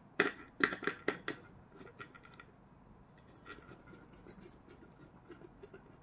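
A screwdriver working the screw terminal of an LED power supply while wires are fed in: about five sharp scratchy clicks of metal on metal in the first second and a half, then only faint light scrapes.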